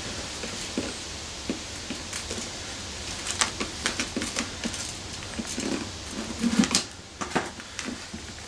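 Tire irons levering a motorcycle tire bead over the wheel rim: irregular metal clicks, scrapes and short knocks, bunched in two flurries, the louder one near the end.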